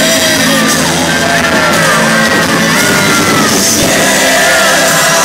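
Loud music with singing, mixed with shouting voices from a crowd.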